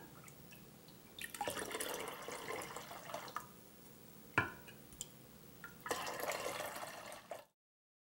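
Herbal bath water scooped with a glass mug and poured back into a glass bowl, twice, with a sharp glass clink between the two pours. The sound cuts off to silence near the end.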